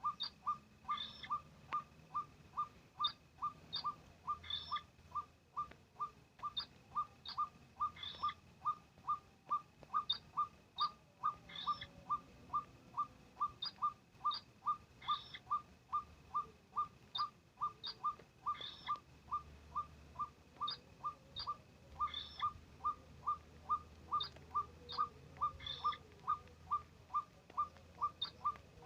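White-breasted waterhen (ruak-ruak) calling: short, falling notes repeated evenly, about two to three a second without a break, with fainter higher notes coming back about once a second.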